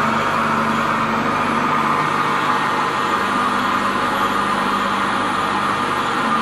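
Metal lathe running steadily with its spindle turning: a continuous machine drone with a steady low hum.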